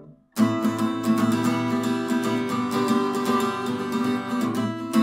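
Acoustic guitar strumming chords in an instrumental passage of a song, coming in sharply after a brief pause about half a second in.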